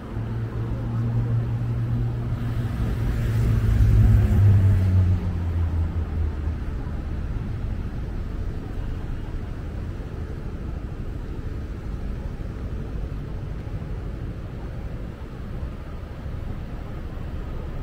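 A motor vehicle passes close by, its engine hum swelling to a peak about four seconds in and dropping in pitch as it moves away. Steady street traffic noise follows.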